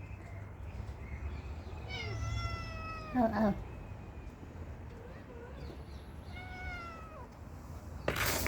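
Street cats meowing: two drawn-out meows that fall in pitch, a few seconds apart. A short burst of rustling noise near the end.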